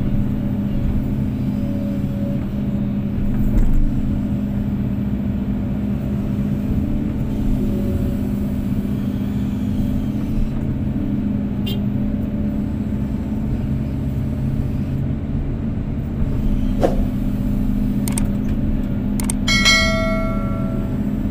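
Kobelco SK250-8 excavator's diesel engine running at a steady speed, with a few sharp knocks and, near the end, a brief ringing metallic tone.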